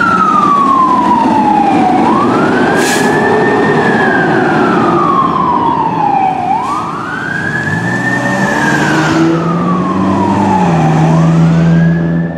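Fire engine siren on wail, each cycle sweeping up quickly and falling slowly, about every four and a half seconds. A low, steady engine hum comes in under it in the second half.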